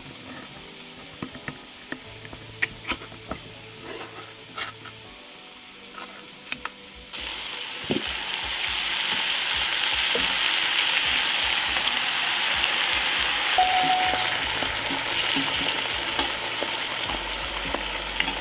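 A few light metallic clicks as a ring-pull can of peeled tomatoes is opened. About seven seconds in, a loud sizzle starts suddenly as the tomatoes and their juice hit the hot cast-iron Dutch oven, and it goes on frying steadily while the pot is stirred with a wooden spoon.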